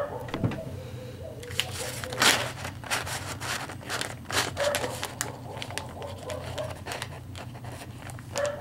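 Clear plastic bag of soft plastic fishing lures being handled, crinkling and rustling in a run of irregular crackles.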